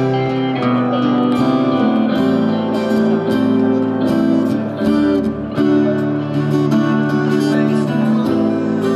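Live instrumental guitar music: an electric guitar played through a small Marshall amplifier over acoustic guitar accompaniment, with long held notes.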